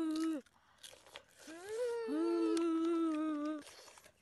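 A child hums a pleased "mmm" while eating boiled crab: a short hum at the start, then a longer held one from about a second and a half in. Short crunches and clicks of chewing crab shell come between the hums.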